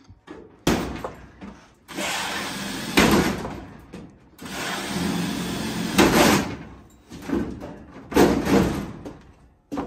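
Handheld cordless drill worked against a race car's sheet-metal door panel in a series of short bursts, each a second or so long, as the fasteners holding the old body panels are taken out.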